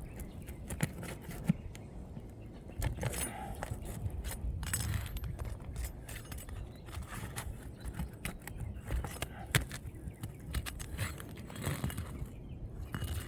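Metal roofing tools, a roofer's hatchet and a roof snake, clicking, tapping and scraping under asphalt shingles as the shingles are pried up and the roofing nails worked out. The clicks are sharp and irregular, with a few louder knocks, over a low steady rumble.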